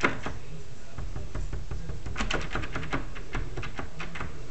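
Metal door lever handle jiggled and tapped with a finger, giving light irregular clicks and rattles: a sharp click at the start, a quick cluster about two seconds in, and a few single clicks after.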